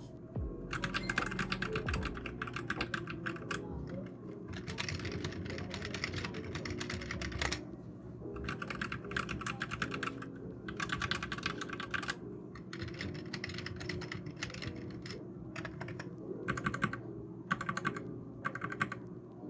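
Typing on keyboards in a side-by-side comparison between a Royal Kludge RK71 mechanical keyboard and a cheap full-size keyboard. The rapid keystroke clatter comes in about nine bursts of a second or two each, with short pauses between them.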